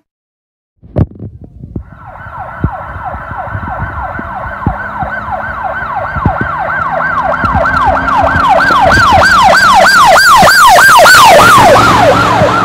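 Emergency-vehicle yelp siren, a fast rising-and-falling wail about three to four times a second. It starts about two seconds in and grows steadily louder toward the end. A sharp knock comes just before it, and faint knocks run underneath.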